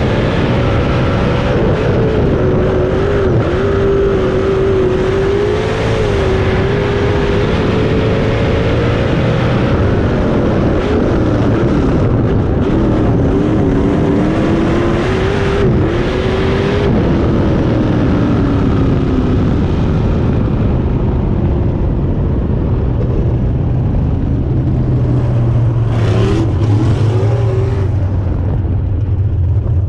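305 sprint car's V8 engine under racing load, heard from a camera mounted in the cockpit. The engine note rises and falls continuously as the driver gets on and off the throttle around the oval.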